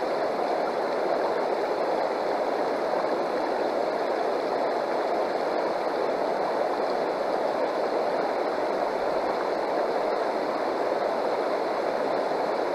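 Shallow river water rushing steadily over rocks and running through an aluminium gold-prospecting sluice box set in the current.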